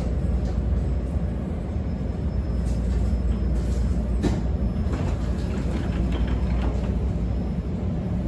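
Steady low rumble inside a CTA 5000-series rapid-transit car as it comes to a stop at a station. A sharp click comes about four seconds in and faint squeals follow, and the side doors slide open near the end.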